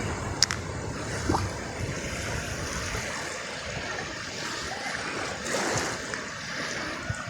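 Sea waves washing on a beach: a steady rush that swells briefly about five and a half seconds in, with a sharp click just under half a second in.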